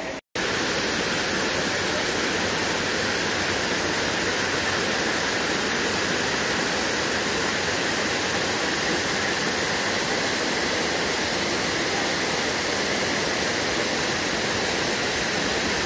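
River water rushing past: a loud, steady, unbroken noise that starts abruptly just after a brief dropout at the very beginning.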